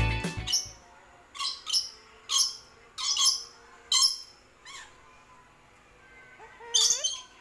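Cockatoo giving a string of short, sharp calls, several over the first few seconds, then a pause before a last call near the end. Music fades out just as the calls begin.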